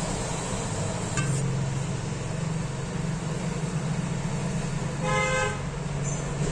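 Steady low hum of background noise, with one short horn-like toot about five seconds in.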